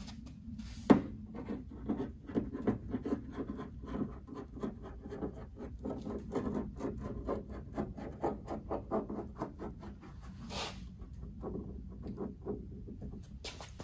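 A tube of weatherstrip adhesive and a gloved hand scraping and ticking along the metal channel of a car's trunk lid as a bead of adhesive is run. It is a quick run of small scratches and ticks, a few a second, with one sharp click about a second in and a couple of brief rustles near the end.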